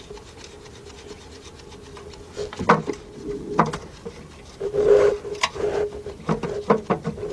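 Sporadic small clicks, knocks and scraping of hardware being handled and fitted at the starter: a lock washer and nut going onto the starter's cable stud. The clicks start about two and a half seconds in and crowd together over the last couple of seconds, over a faint steady hum.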